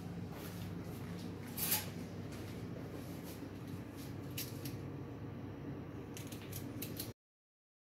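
Steady low hum with a few faint clicks and one brief scratchy noise about two seconds in, likely from handling the camera as it moves. The sound cuts off abruptly near the end.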